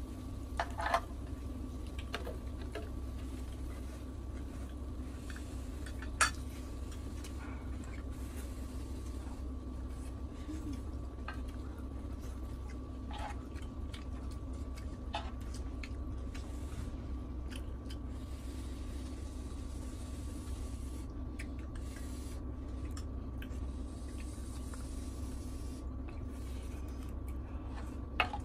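Sparse clicks and scrapes of a metal spoon and a wooden spatula against a grill pan while eating, over a steady low hum; the sharpest clink comes about six seconds in.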